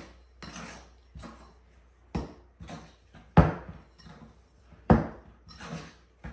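Spoon scraping and knocking against a mixing bowl while stirring thick, stiff cookie dough, in irregular strokes, the loudest knocks about three and a half and five seconds in.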